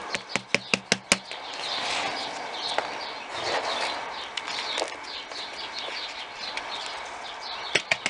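About seven quick, sharp taps and clicks from handling a plastic plant pot in the first second. Then a rustling of potting soil being worked and pressed by hand, with small birds chirping in the background.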